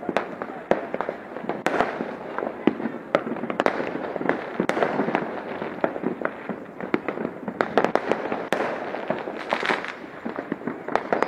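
Fireworks and firecrackers going off in a steady barrage of sharp pops and bangs, several a second, with no let-up.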